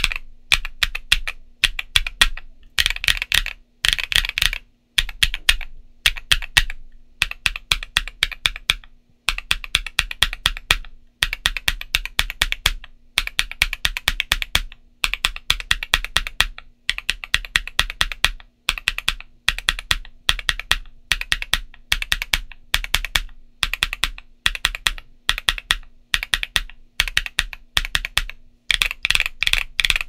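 Typing on a stock Portico68 BL mechanical keyboard with MMD Princess Linear 53g linear switches and MT3-profile ABS keycaps. The keystrokes come in quick runs of a second or two with short pauses between.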